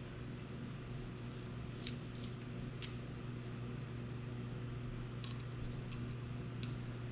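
A few scattered light clicks and ticks of small hard parts being handled, over a steady low electrical hum.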